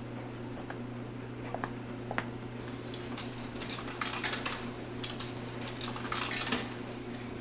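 Short bursts of metallic clinking and rustling, about three seconds in and again about six seconds in, as change is dug out of a trouser pocket, over a steady low electrical hum.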